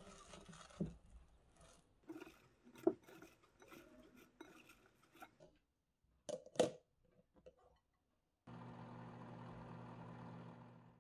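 Hands tossing shredded cabbage in a glass bowl, a rustling with a few crisp knocks, followed by two sharp clicks as a plastic lid is fitted over the bowl. After a short pause a Daewoo microwave oven runs with a steady hum.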